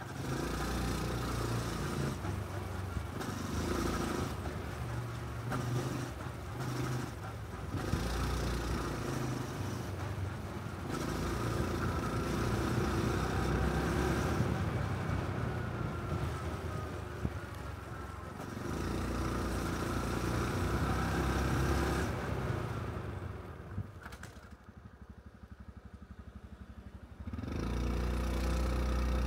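A Honda Cub's 125 cc single-cylinder engine running as the motorcycle is ridden, with wind noise on the microphone. About 24 seconds in it drops to a quiet idle for a few seconds, then picks up again as the bike pulls away near the end.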